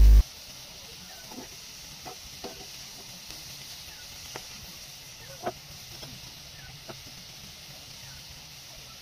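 Grated carrots frying in ghee in a karai, a steady faint sizzle, with scattered light clicks of a metal spatula against the pan as they are stirred. A loud hum cuts off right at the start.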